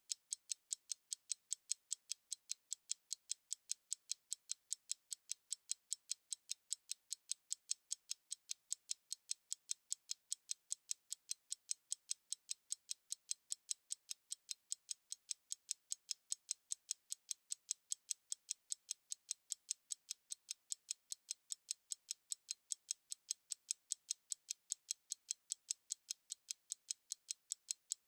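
Analog stopwatch ticking: a fast, perfectly even run of thin, high clicks, several a second, steady in level.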